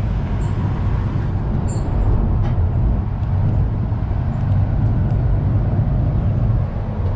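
Engine and road noise of a moving open-air safari bus heard from inside it: a steady low rumble under an even rushing noise.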